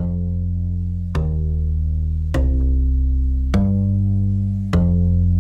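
Background music: a new chord struck about once a second over a sustained low bass.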